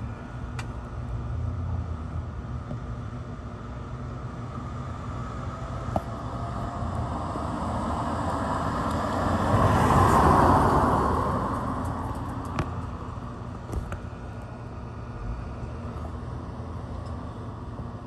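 Ceiling fans running with a steady low motor hum. A broad rushing sound swells up and fades away over a few seconds in the middle, with a few faint clicks.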